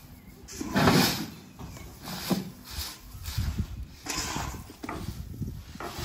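Threshed wheat grain scooped off a heap and tipped into a tractor trailer: a run of rushing pours and scrapes about once a second, the loudest about a second in.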